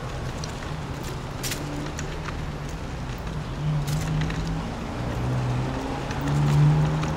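City road traffic: a steady rumble of cars on the avenue that swells twice, with a few sharp clicks.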